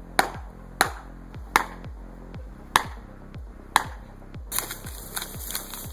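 Felling wedges being hammered into a tree's back cut: sharp metallic strikes about every 0.6 to 1 s, spacing out, over background music. The strikes stop about four and a half seconds in and a steady hiss takes over.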